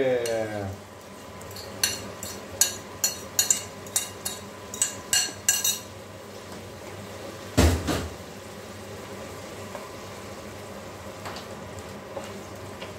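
A quick run of about ten sharp clinks and knocks as a ceramic bowl and a wooden spoon strike an aluminium pan while crumbled tahure (fermented tofu) is tipped into simmering tomato sauce, then one heavier knock with a short ring about seven and a half seconds in. Faint simmering underneath.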